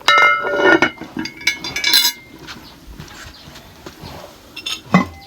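A farm animal calling: a loud pitched call right at the start, lasting under a second, then a second call about two seconds in, with a short sharp knock near the end.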